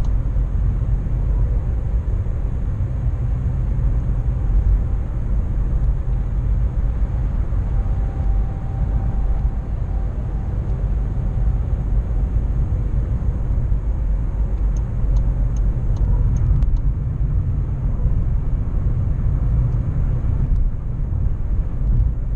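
Steady road noise inside a Škoda car's cabin at motorway speed: a constant low rumble of engine and tyres with hiss over it.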